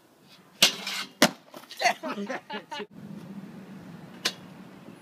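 Skateboard hitting a metal stair handrail: two loud clacks, then about a second and a half of rough scraping, and later a single sharp clack.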